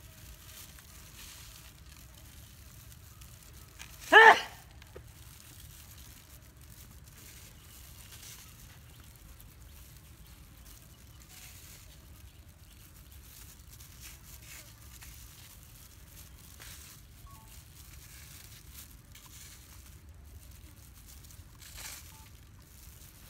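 Faint crinkling and rustling from a plastic-gloved hand sprinkling dry chili seasoning over raw pig legs in a metal tray, over a quiet outdoor background. About four seconds in comes one loud, brief animal call, and near the end a much fainter one.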